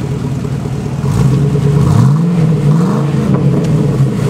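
Hummer H2's 6.0-litre V8 running through a Dynomax cat-back exhaust: idling, then revved twice in quick succession in the middle, each rev rising and falling before it settles back to a steady run.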